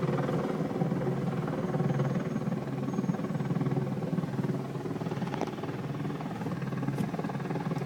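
Steady low drone of a car driving, heard from inside the cabin.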